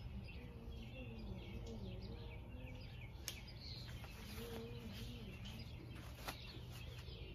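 Two light clicks from a Cold Steel Raja 3 folding knife as it is slipped clip-first into a trouser pocket, over faint birds chirping and a low wavering hum heard twice.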